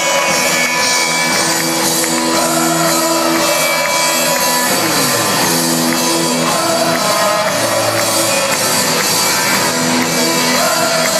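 Rock band playing live in a stadium, loud, with the surrounding crowd shouting and singing along.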